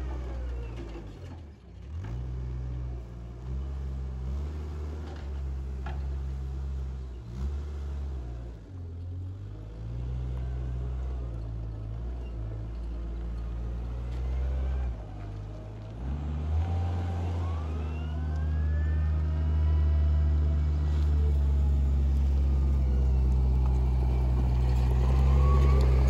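Compact wheel loader's diesel engine running as it moves a square straw bale, its engine speed stepping up and down, then holding higher and growing louder from about two-thirds of the way in as the machine comes close.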